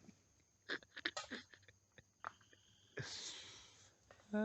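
A person chewing food close to the microphone: soft, wet mouth clicks and smacks, then a long breath out about three seconds in.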